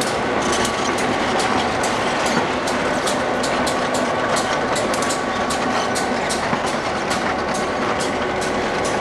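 Conrail GP10 diesel locomotives, rebuilt GP9s with EMD two-stroke diesel engines, rolling slowly past with their engines running. Their wheels clatter over the rail joints, a quick irregular string of sharp clicks.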